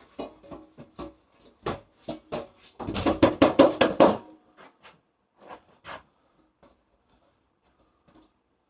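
Packing material and cardboard from an unboxing being handled and cleared away: scattered light knocks and clicks, with a louder burst of rustling about three seconds in that lasts over a second, then a few last taps before it goes quiet.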